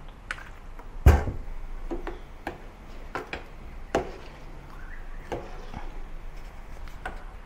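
A metal ladle knocking and clinking against a stainless steel pot as soup is stirred: scattered knocks, the loudest about a second in.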